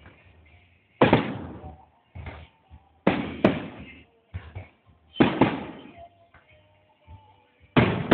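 Fireworks bursting: four loud bangs about two seconds apart, each followed by a rolling, echoing tail.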